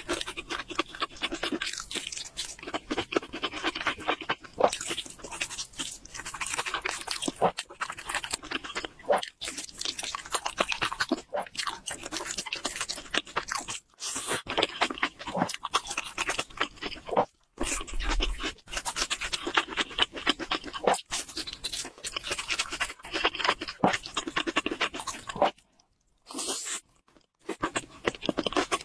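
Close-miked chewing of sauce-coated fried chicken and noodles: irregular crunching and wet mouth sounds, with a few brief silent gaps.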